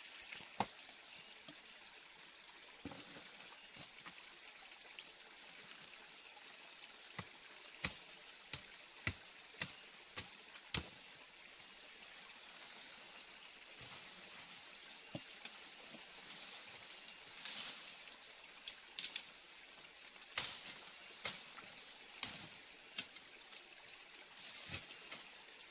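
Small forest stream trickling steadily, with scattered sharp snaps and rustles of twigs and dry leaves being stepped on and handled.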